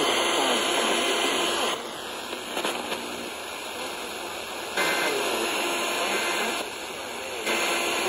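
FM radio receiver tuned to 89.7 MHz giving out a steady hiss of static, with faint speech underneath. The noise steps abruptly louder and quieter every second or two.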